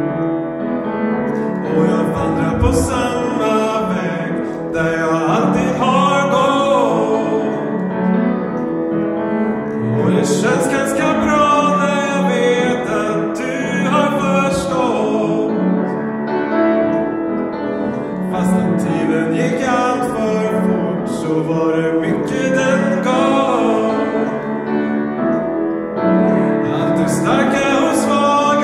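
A man singing a slow song into a microphone, accompanied by piano chords.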